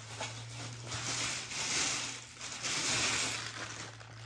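Plastic wrapping rustling and crinkling as it is pulled off a light stand, in two longer stretches in the middle, over a steady low hum.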